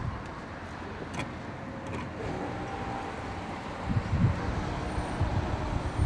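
Steady road traffic and filling-station background noise, with a few low rumbles about two thirds of the way in and a faint steady hum in the second half.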